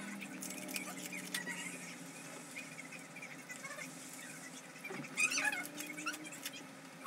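Plastic candy wrappers crinkling and rustling as taffy pieces are peeled open by hand, in small irregular crackles. About five seconds in, a few short high squeaky cries rise and fall over it, the loudest sound.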